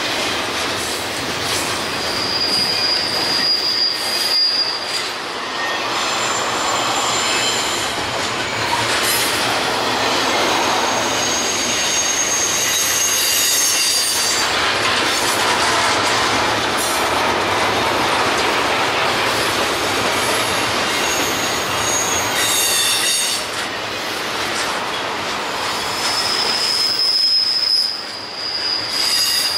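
Freight train cars rolling past, their wheels running steadily on the rails, with high-pitched wheel squeal that comes and goes several times, including a stretch near the start and another near the end.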